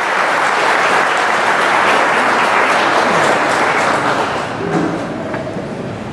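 Audience applauding, a dense clapping that eases off after about four seconds.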